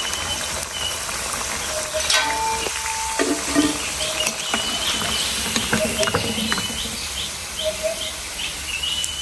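Vermicelli-coated plantain vadais deep-frying in hot oil in a kadai, a steady sizzle, with a few sharp clinks of the metal slotted spoon against the pan as the fried vadais are lifted out.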